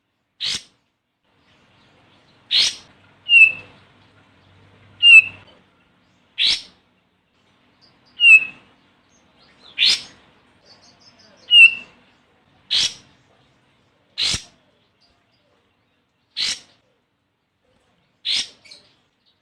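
Olive-winged bulbul calling: short, sharp notes repeated about every two seconds, with four louder, short downward-slurred whistles among them in the first half.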